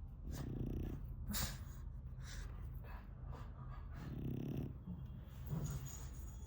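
A pug snoring in its sleep: two snores about four seconds apart, with softer breaths in between. The snoring comes from the breed's short-nosed, brachycephalic airway, a normal trait for pugs.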